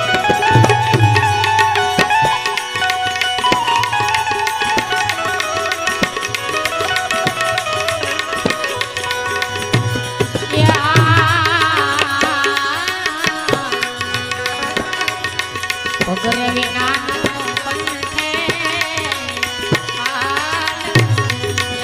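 Instrumental passage of a devotional bhajan: tabla keeps a steady rhythm while a melody instrument plays the tune, its notes wavering in places.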